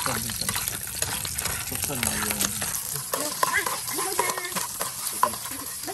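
Garlic cloves and red chilies sizzling in hot oil in a frying pan, with a metal ladle stirring them and clicking against the pan.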